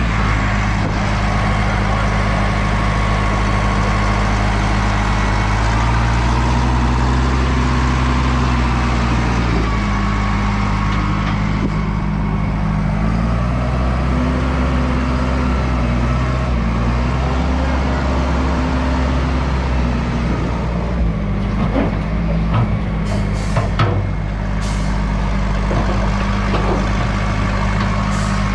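Wheel loader's diesel engine running under load while towing a heavy trailer, its pitch rising and falling several times as the throttle changes. A few sharp knocks come about three-quarters of the way through.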